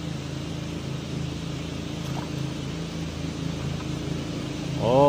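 Small river boat's engine running at idle with a steady low hum. Near the end a man lets out a loud, drawn-out exclamation that falls in pitch.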